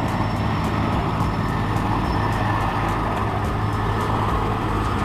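Erickson S-64 Air-Crane heavy-lift helicopter in flight: steady engine and rotor noise with a low hum, a thin high whine and a faint rapid ticking about four times a second.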